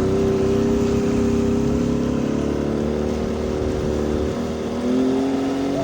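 60 hp Mercury outboard motor running hard under load, pushing the boat along with a steady engine note and a rush of water and wind noise. Its pitch rises a little near the end as it picks up speed.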